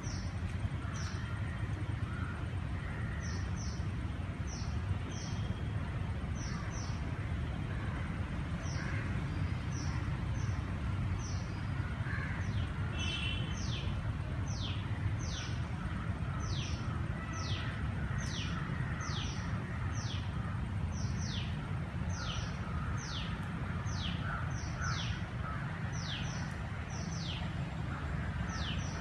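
A bird calling over and over in short high whistles that fall in pitch, about one a second, with a steady low rumble underneath.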